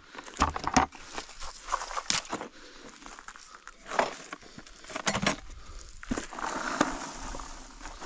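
Irregular clicks, knocks and rustling, with a longer stretch of rustling about six seconds in.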